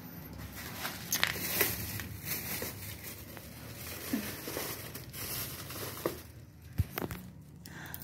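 Clear plastic wrapping crinkling and rustling as a wrapped parcel is handled and pulled at, with a few sharp clicks and taps, the loudest a little over a second in and near the seventh second.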